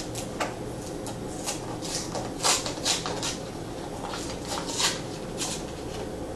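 Packaging of a Funko Mystery Minis blind box being opened by hand: scattered crinkling and rustling, in louder clusters a little after two seconds in and again near five seconds.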